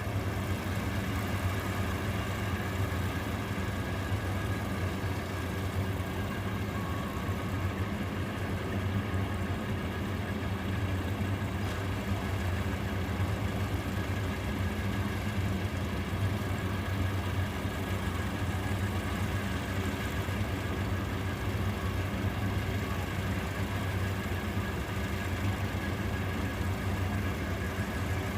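Rice harvester's engine running steadily at a constant pitch, with no revving or change in load.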